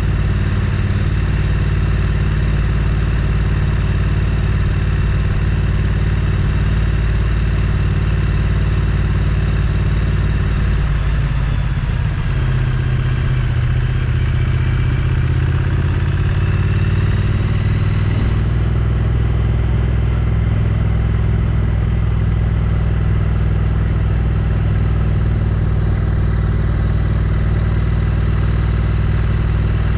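Triumph Street Twin's 900 cc parallel-twin engine on its stock exhaust, running under way as the bike is ridden. The engine note dips about eleven seconds in and then rises steadily over the next several seconds. About two-thirds of the way through, the high hiss drops away.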